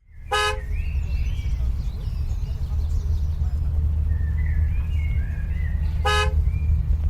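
A car horn gives two short honks, one just after the start and one about six seconds in, over a steady low rumble. Faint wavering high-pitched calls sound in between.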